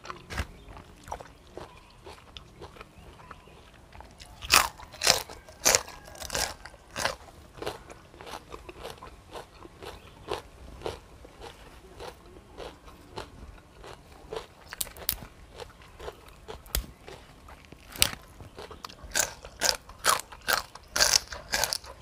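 A person chewing and biting crisp food, a run of crunches that comes in louder clusters about four to seven seconds in and again near the end.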